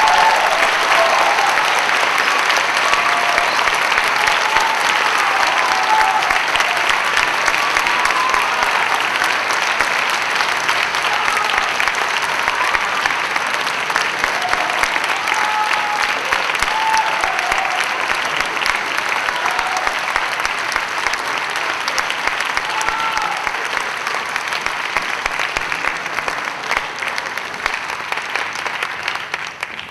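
Theatre audience applauding, dense steady clapping with scattered shouts of cheering, slowly dying down toward the end.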